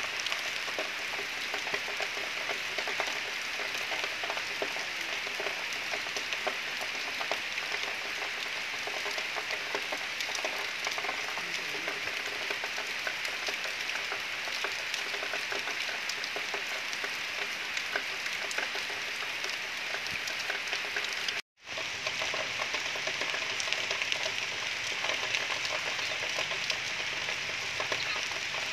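Steady rain pattering, a continuous crackling hiss that cuts out for an instant about three quarters of the way through.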